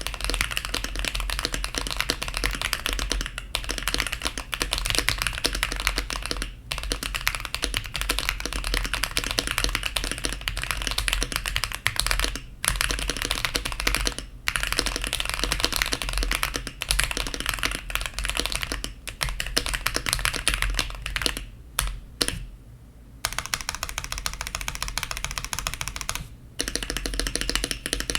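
Typing test on a Keychron Q1 aluminium gasket-mount mechanical keyboard with lubed, filmed Ethereal Panda tactile switches, Boba U4T switches on the modifiers, GeekArk keycaps and a paper-towel and tape mod: a fast, dense run of keystrokes broken by short pauses every few seconds.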